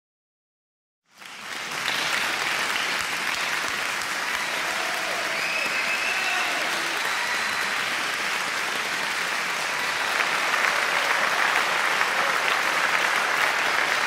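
Crowd applause, starting suddenly about a second in after a brief silence and going on steadily, with a few faint shouts or whistles in it.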